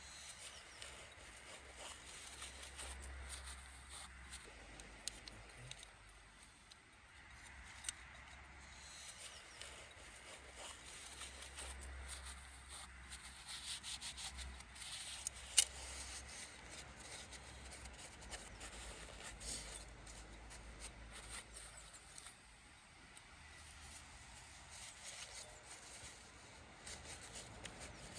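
Faint rubbing and scraping of parts being handled during engine reassembly, with a few sharp clicks.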